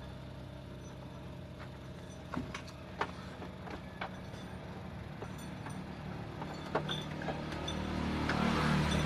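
Dump truck engine running with a steady low hum, over scattered clicks and knocks of hands working at wiring under the dashboard. Near the end a louder rushing noise builds up.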